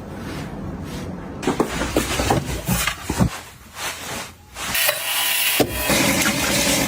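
Household handling sounds: a string of light knocks and clicks, then a louder rustling, brushing noise from about five seconds in.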